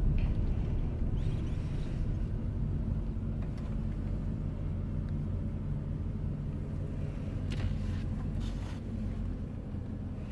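Car engine idling, heard from inside the cabin as a steady low rumble that slowly fades, with two brief clicks about three quarters of the way through.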